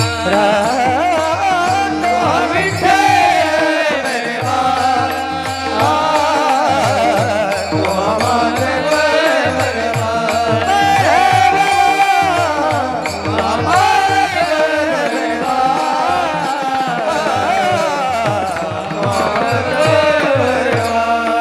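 Marathi abhang bhajan music between sung lines: a pakhawaj drum keeps a steady beat under a wavering melody line and a held drone.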